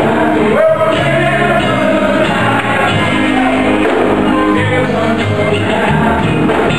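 Live church worship music: a group of singers with a band that includes an electric bass guitar, playing continuously.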